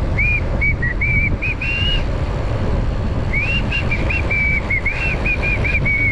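A person whistling a tune in two phrases over loud wind rumble on the microphone of a moving bicycle.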